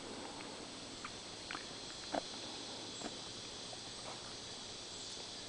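Faint outdoor ambience: a steady low hiss with a few soft, scattered clicks, the clearest a little over two seconds in.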